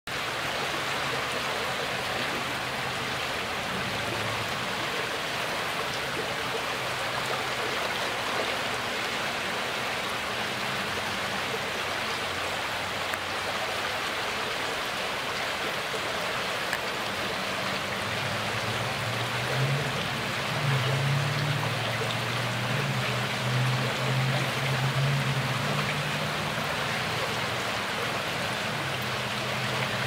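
Shallow water lapping and rippling over a pebble shore, a steady wash of water sound. A low hum underneath grows louder for several seconds past the middle.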